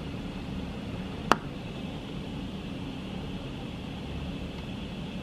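Heavy rain mixed with hail pouring down in a steady hiss, with one sharp tick a little over a second in.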